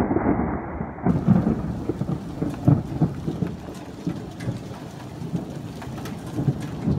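Thunderstorm rain falling and pattering on surfaces close by, uneven and crackling, with thunder rumbling underneath.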